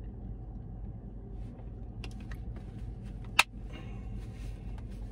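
Low steady hum inside a car, with faint handling noises from a plastic shaker bottle and a napkin. One sharp click about three and a half seconds in.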